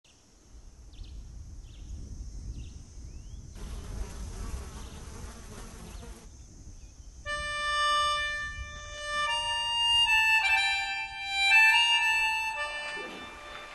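Insects buzzing steadily at a high pitch over a low rumble, with a rush of hiss for a couple of seconds near the middle. About seven seconds in, music enters with long held notes.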